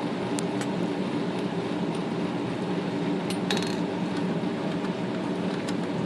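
Light metallic clicks and clinks from hand tools and small parts being worked loose on a Smith Corona electric typewriter's mechanism. There is a brief rattle about three and a half seconds in, and a steady low hum runs underneath.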